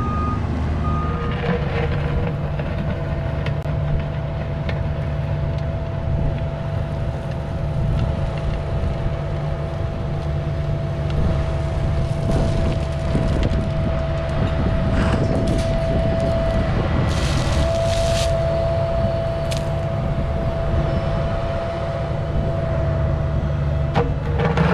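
Cat mini excavator running steadily while trenching, with a steady whine over the engine. Scattered knocks and scrapes come about halfway through.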